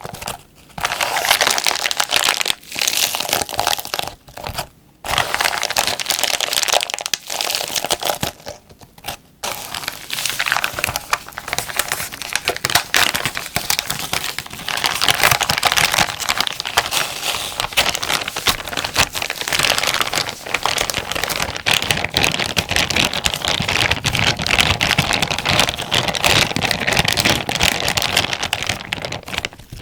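Plastic zipper bag being crinkled and crumpled by hand, a dense crackling that stops briefly a few times in the first third.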